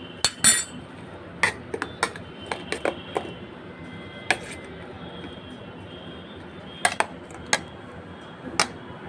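A steel spoon clinking and scraping against a stainless steel bowl while stirring ground onion and spice powders into a masala. The taps are irregular: a cluster in the first three seconds, a lone one in the middle, and a few more near the end.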